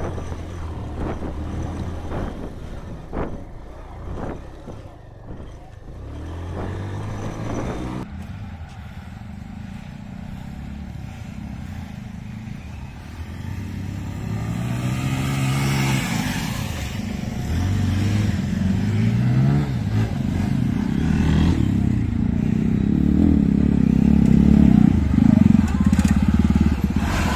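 Motorcycle engines working on a rough dirt trail. First the bike is heard from the saddle as it rides over rough ground. After a sudden change, other motorcycles rev up and down as they climb a sandy slope, and one gets steadily louder as it comes close near the end.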